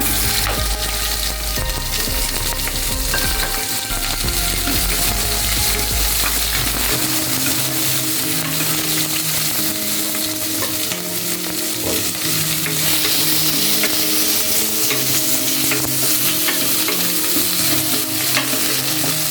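Boiled onion pieces sizzling steadily as they fry in a little hot oil with cumin seeds, stirred now and then with light clicks and scrapes against the pot.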